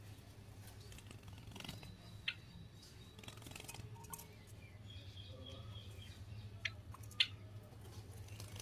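Java sparrows giving a few short, high chirps among sharp clicks, the clicks typical of beaks pecking at grain. A faint steady hum runs underneath.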